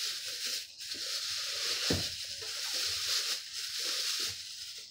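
Packing material rustling and crinkling steadily as a box is unpacked by hand, with a few light knocks, the clearest about two seconds in.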